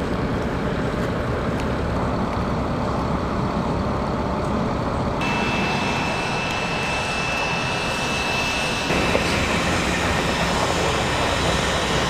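Heavy armored-vehicle diesel engines running in a steady low rumble. A thin steady whine sits over it from about five to about nine seconds in, and the sound shifts abruptly at both points.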